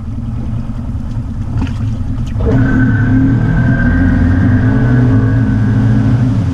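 ATV engine running, picking up revs about two and a half seconds in and holding there with a steady high whine over the engine note.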